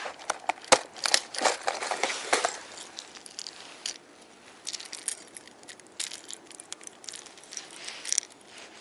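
Sharp clicks and plastic rattling as a clear plastic lure box is opened during the first two to three seconds, then quieter scattered clicks and scratching as a blue-sided minnow wobbler is taken out and handled.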